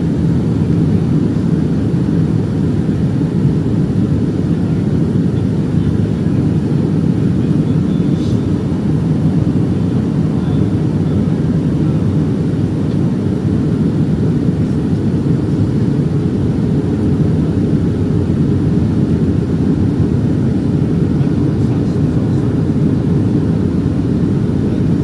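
Steady cabin noise of a Boeing 757-232 on descent, heard from a passenger seat: the rush of airflow and the Pratt & Whitney PW2037 turbofans running, deep and even throughout, with one faint tick about eight seconds in.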